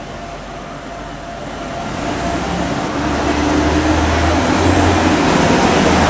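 Road traffic: a heavy vehicle's low engine rumble and rushing noise swelling over a few seconds and staying loud.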